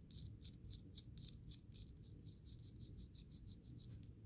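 Gear train of a 1966 Fleischmann 1306 HO shunter locomotive turned by hand: faint, rapid clicking of the small metal gears, about seven clicks a second, stopping shortly before the end.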